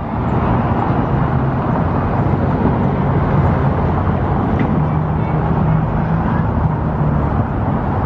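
Loud, steady street noise: a dense low rumble from wind on the microphone and traffic, with a faint steady engine-like hum under it.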